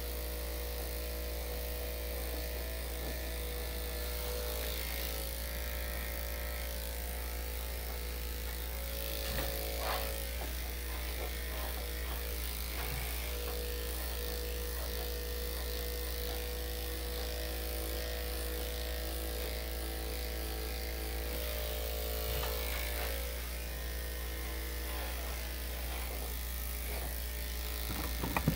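Electric dog grooming clippers with a #5 blade running steadily, an even motor hum.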